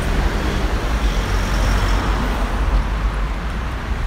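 Steady road traffic on a busy city street, with cars, vans and trucks driving past over a constant low rumble.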